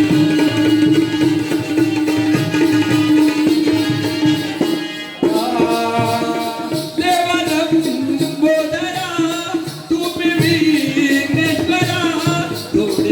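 Jakhadi folk music: hand drums keep a steady beat with jingling rattle-like percussion under a melody line. About five seconds in the melody changes from a held note to a moving tune.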